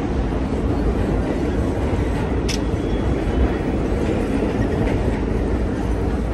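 Steady low rumble of city street traffic, with a short sharp click about two and a half seconds in.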